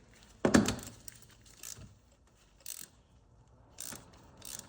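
A hand ratchet with a spark plug socket snugging down a new spark plug: a knock about half a second in, then four short bursts of ratchet clicking about a second apart as the handle is swung back between strokes.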